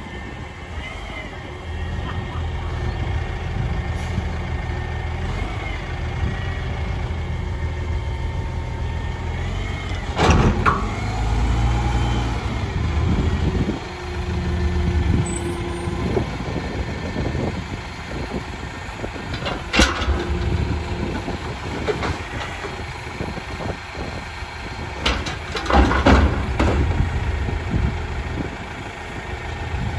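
Mack MRU front-loader garbage truck with a Heil Odyssey body running, its engine steady with a step up in speed a couple of seconds in. Sharp, loud sounds cut in about ten seconds in, about twenty seconds in, and twice around twenty-five to twenty-seven seconds in.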